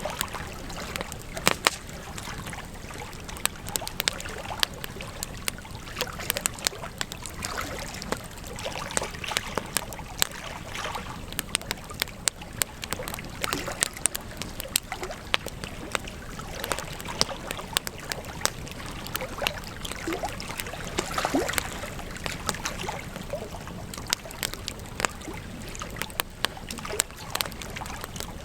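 Wood campfire crackling, with frequent sharp, irregular pops and snaps over a steady hiss of burning.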